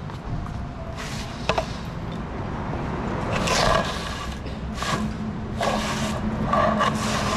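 A wooden board scraping across a concrete floor in several short pushes, with a sharp knock about one and a half seconds in, over a steady low hum.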